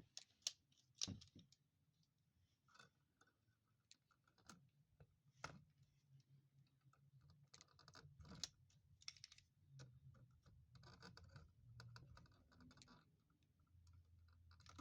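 Faint scattered clicks and rustling, like small objects being handled and moved around, with denser clusters of clicks near the middle and end.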